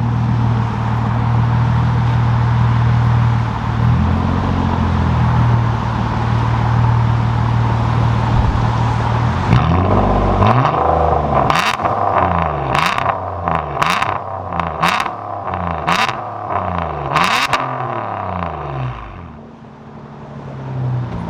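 Straight-piped exhaust of a 2017 Nissan Maxima's 3.5-litre V6, muffler and resonator deleted, idling loudly with one short blip about four seconds in. About ten seconds in it is revved repeatedly, pitch rising and falling about once a second with sharp cracks between revs, then settles back to idle near the end.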